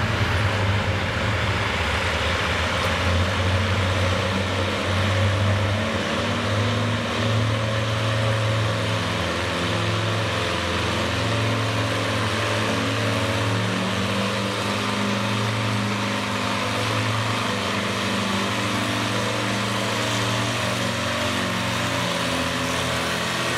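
Farmall H tractor's four-cylinder engine running steadily under load as it pulls a weight-transfer sled down the track, its pitch wavering only slightly.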